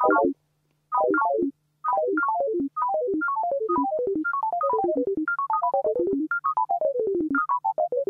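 Short synthesized notes from a Pure Data patch that simulates pendulum motion, a note for each pendulum, sounding in quick runs that fall from high to low pitch. They begin as a few tight bursts about a second apart, then spread out and overlap into a continuous patter, with a faint steady low hum beneath.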